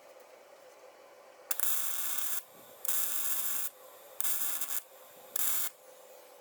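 Pneumatic air hammer run in four short bursts, each under a second, against a broken, rusted-in bolt, shocking it to break the corrosion loose.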